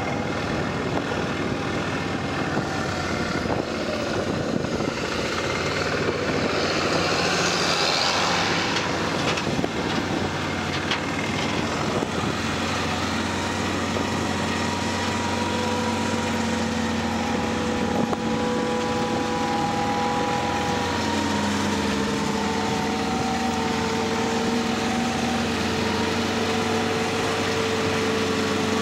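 Engines running steadily: the ATV's engine as it rides across the stubble, then the machinery chopping corn silage, a tractor pulling a forage harvester with a wagon, with steady whining tones coming in about halfway through.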